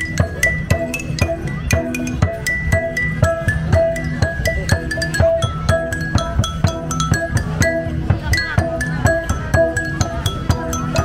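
Đàn đá, a Central Highlands stone lithophone, struck with mallets in a quick melody of ringing pitched notes, several a second, over a steady low beat.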